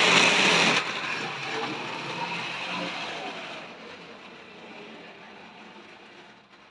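Tri-ang model railway Jinty tank locomotive running on the track with a steady whirring rumble. The sound drops sharply about a second in, then fades away steadily as the train is slowed to come into the station.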